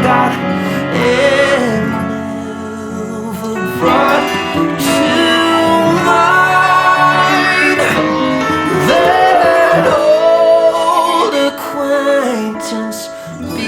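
Music: a soft Christmas pop song with guitar and a singing voice holding drawn-out vocal lines without clear words.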